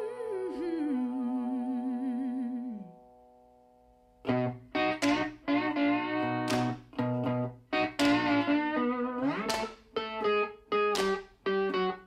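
Slide guitar music: a held, wavering slide note that glides down and fades about three seconds in. After a short pause, plucked guitar notes start again with sliding pitches.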